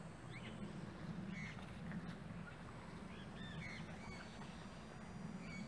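Faint bird calls, a few short ones scattered through, over a low steady hum.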